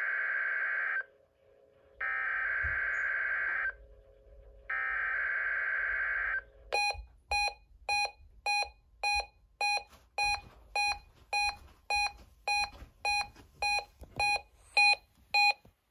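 NOAA Weather Radio SAME data header: three bursts of screechy digital tones, each nearly two seconds long. About seven seconds in, a weather alert receiver's alarm takes over, beeping in a rapid run of short pulses about three a second, set off by the required weekly test.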